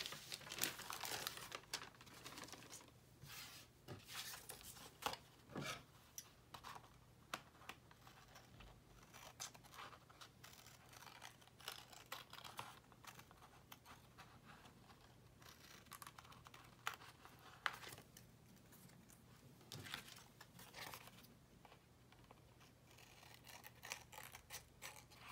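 Faint snipping of small scissors cutting through patterned paper in short, irregular cuts, mixed with paper rustling as the sheets are handled.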